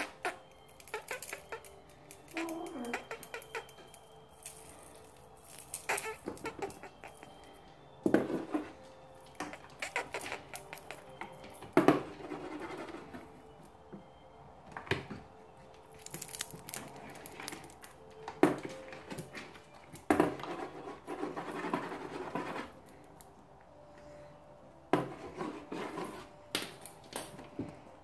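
Cornish Rex kittens scratching and tearing at a cardboard box, irregular bursts of scrabbling, rustling and sharp claw clicks on cardboard and plastic, with quiet gaps between.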